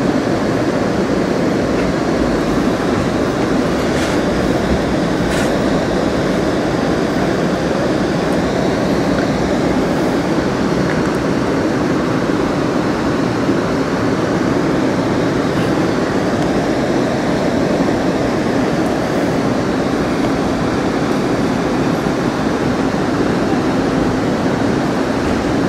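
Amtrak California Zephyr passenger car rolling along the track, heard from inside: a steady rumble of wheels on rail, with a couple of faint clicks about four and five and a half seconds in.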